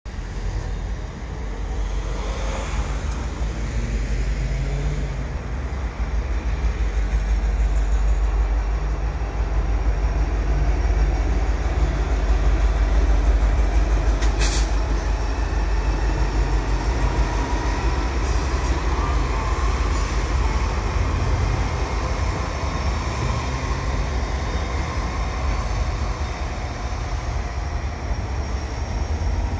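Diesel freight locomotives, a CN EMD SD70M-2 and a GE C44-9W, pulling a freight train across a rail overpass. Their engines make a steady low rumble that is loudest about midway as they pass, then gives way to freight cars rolling. There is a single sharp click about halfway through and a faint whine shortly after.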